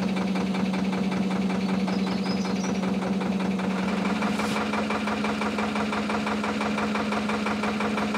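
Narrowboat's air-cooled Lister diesel engine running steadily with a rapid, even knocking chug; its note steps up slightly about four seconds in.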